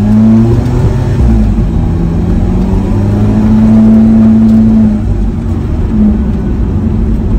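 Alfa Romeo 4C on its stock exhaust, heard from inside the cabin during a light acceleration from a stop. The 1.75-litre turbocharged four-cylinder climbs in pitch, drops back at upshifts about half a second in and again about five seconds in, then pulls on steadily.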